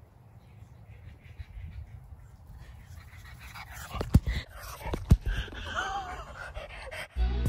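A pug puppy panting and snuffling close to the microphone, with two sharp knocks about four and five seconds in as it bumps into the camera, followed by a short wavering whine. Music starts just at the end.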